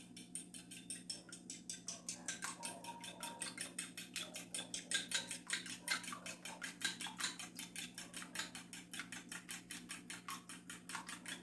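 Four eggs being beaten by hand with a fork in a small ceramic bowl. The fork clicks against the bowl in a steady quick rhythm of about six strokes a second.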